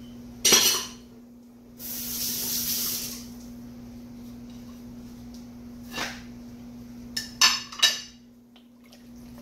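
Kitchen dishes and utensils handled: a sharp clank about half a second in, a hiss lasting about a second, then a knock and a quick run of clinks near the end.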